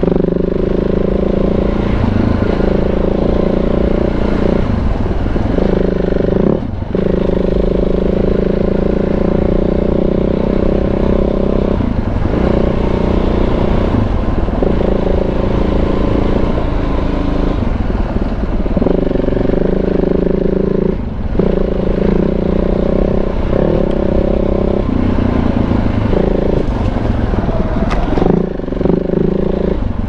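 KTM 690 big-bore single-cylinder motorcycle engine pulling steadily under way up a trail. Its note drops out briefly three times before picking up again.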